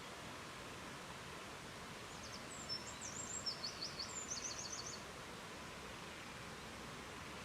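Steady rushing of a river, with a small songbird singing a short burst of quick, high chirps and trills from about two and a half to five seconds in.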